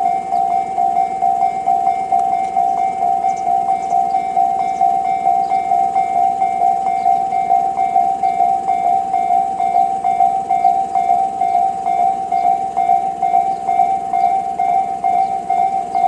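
Electronic railway level-crossing bell of the Tobu type C tone, ringing steadily as an even train of dings about twice a second.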